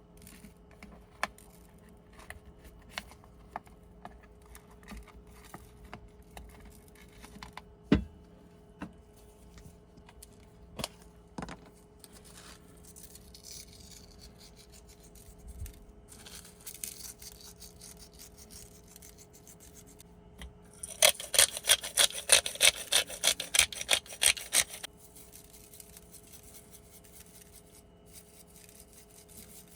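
Scattered light clicks and knocks, then a run of quick rubbing or scraping strokes, about three a second, lasting about four seconds and louder than the rest.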